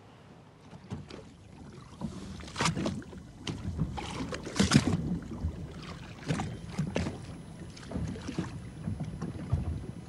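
Wind rumbling on the microphone aboard a small boat at sea, with irregular sharp knocks.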